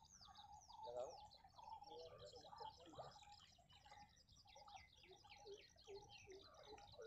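Faint chorus of several birds calling at once: rapid runs of high chirps, quick downward-sweeping whistles, and lower warbling calls underneath.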